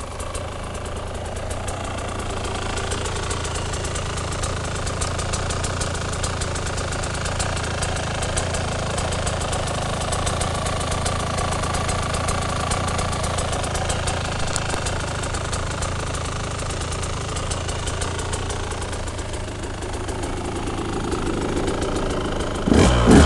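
KTM 125 EXC's 125cc two-stroke single idling steadily with a fast, crackly beat. Just before the end it is suddenly opened up, louder and higher.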